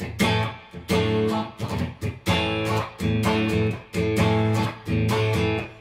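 Squier Stratocaster Deluxe electric guitar played clean through a Mesa/Boogie Mark Five:25, strumming short, choppy chords in a rhythm with brief gaps between them. The signal runs through a diode-bridge feedforward compressor pedal with its sustain turned all the way down, where it acts almost as a limiting leveler and does little until the strings are hit hard.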